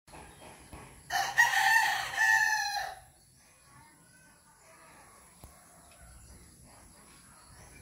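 A rooster crows once, starting about a second in, a single call lasting just under two seconds.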